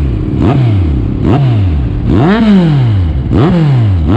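Kawasaki Z1000 inline-four engine revved through a Termignoni slip-on muffler in quick throttle blips. There are about four blips, each pitch jumping up and falling back, and the one a little past two seconds in goes highest.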